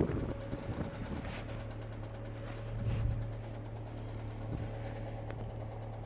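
Hyundai NF Sonata engine running at a steady idle, a low even hum with a faint higher whine; the engine is one the dealer describes as failed, the kind of engine noise that rules the car out for export.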